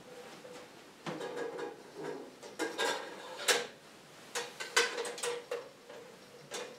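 Handling sounds from a small metal-and-glass lantern and other altar objects: a run of clicks, clinks and knocks as its door and fittings are worked and things are set down on the table, the sharpest about halfway through.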